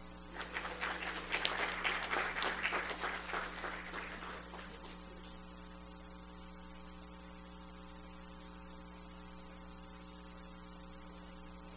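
Audience applauding for about four seconds, dying away, over a steady electrical hum that carries on alone afterwards.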